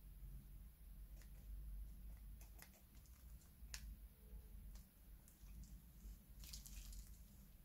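Faint, scattered sticky clicks and crackles of slime being squeezed and handled in piping bags, with a small cluster of clicks near the end.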